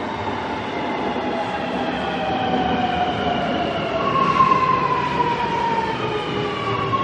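Sydney Metro driverless electric train's traction motors whining over the rumble of the train, the whine falling steadily in pitch as the train slows into a station, then starting again higher about four seconds in and falling once more.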